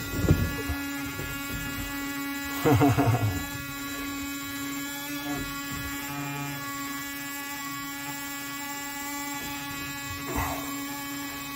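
Steady electric buzz from a plumber's line-tracing buzzer, carried along the copper hot-water pipe to locate the leaking line. A few brief louder noises break in, about three seconds in and near the end.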